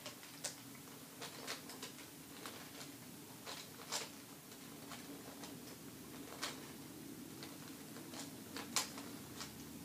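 QJ 3x3 plastic puzzle cube's layers clicking as they are twisted with the teeth: irregular, separate clicks, the loudest near the end, over a faint low steady hum.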